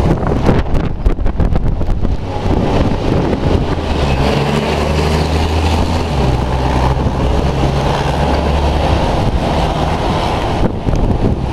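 Strong wind buffeting the microphone over roadside traffic noise; from a few seconds in, a heavy vehicle's engine hum passes for several seconds before fading.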